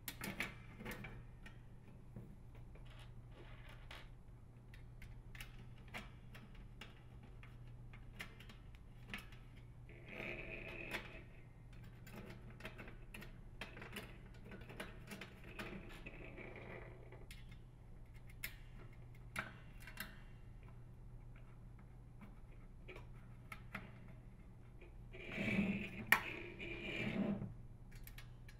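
Faint handling sounds of a sheet-metal heater cover and small hex head screws: scattered light clicks and taps, with three short spells of grinding as the screws are driven in with a nut driver. The spells come about ten seconds in, midway, and near the end, and the last is the loudest.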